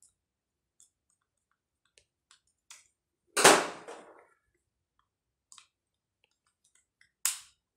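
Faint scattered clicks of a screwdriver working the terminal screws of an electric plug. About three and a half seconds in comes one loud, brief clatter, as a screwdriver is set down and another picked up, and a shorter sharp knock near the end.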